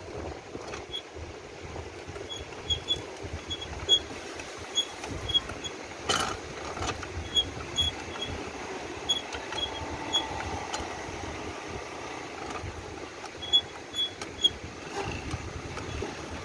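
Hand-cranked metal squid roller press being turned by its large wheel, giving irregular runs of sharp clicks and clacks as it flattens grilled squid thin. One louder clack comes about six seconds in.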